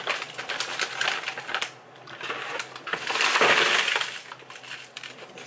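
Plastic bag of frozen jumbo shrimp rattling and crinkling as it is shaken, then the frozen shrimp poured out in a loud clattering rush into a plastic tub about three seconds in.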